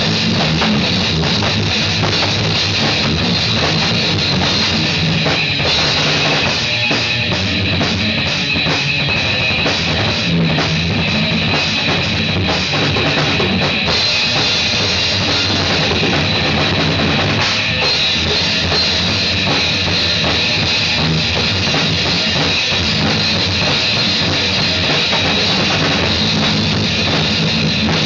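Loud rock music played on a drum kit, with bass drum and guitar, as an amateur jam.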